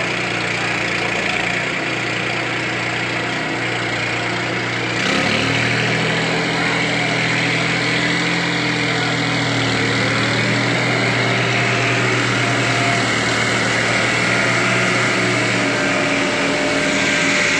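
New Holland 3630 three-cylinder diesel tractor engines running under load while the chained tractors pull against each other. About five seconds in the engine revs up and gets louder, then holds there.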